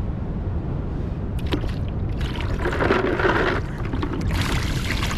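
Plastic bucket dipped into a tide pool to scoop up seawater: a few light knocks, then water splashing and gurgling into it from about two seconds in, with more sloshing near the end.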